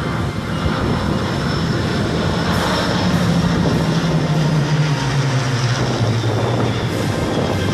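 Piston V12 engines of a formation of four Second World War fighters, Spitfires among them, droning as they fly low overhead. The engine note drops in pitch about five seconds in as they pass.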